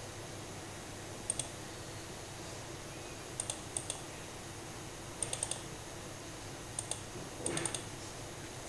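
Clicking at a computer: a handful of short, sharp clicks, several in quick pairs or little runs, spaced a second or two apart over a faint steady hum.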